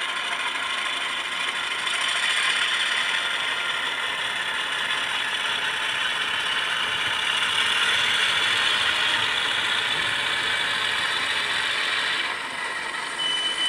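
HO-scale LifeLike E8 model diesel locomotive with a LokSound sound decoder backing a string of cars: a steady mechanical rattle of its gear drive and wheels on the track, mixed with the decoder's diesel running sound. It eases off slightly near the end.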